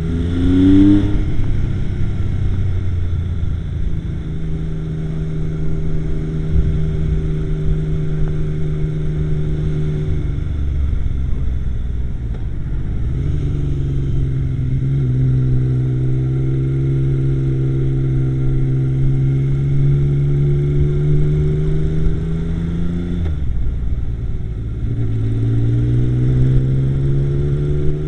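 Yamaha XS850 triple's engine running under way, its note climbing with throttle, holding steady, then easing off, twice, before climbing again.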